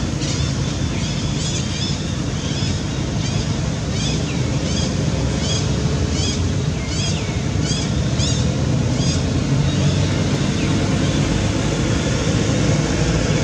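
Steady low outdoor rumble, like wind on the microphone, with a run of short high chirps repeating about every two-thirds of a second that stops about nine seconds in.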